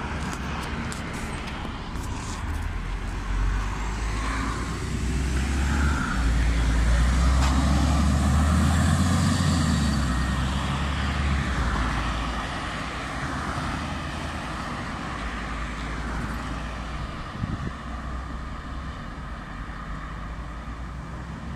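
LiAZ 5292.67 city bus with a compressed-natural-gas engine pulling away and driving off. Its low engine drone swells about a third of the way in, then fades as it goes away, over the noise of passing road traffic.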